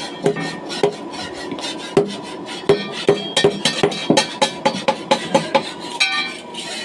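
Quick series of sharp metallic clinks and scraping strokes, several a second, with a faint steady ringing underneath, like a metal tool working against metal.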